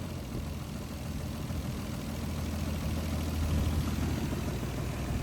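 Car engine idling with a knock, the sign of an engine run for two years without an oil change.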